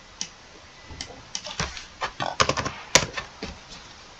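Computer keyboard keys tapped in a quick, irregular run of about a dozen clicks, some in quick clusters, with a louder key stroke about three seconds in. These are keystrokes typing a rotation value.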